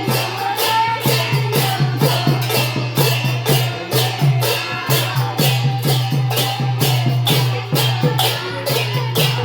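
Sylheti dhamail folk song: loud, steady percussion with sharp strikes about three a second over a low, sustained bass, and a faint melodic line.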